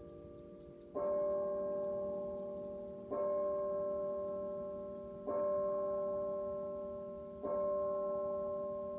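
A single large bell tolling slowly: four strikes on the same note about two seconds apart, each one ringing on until the next.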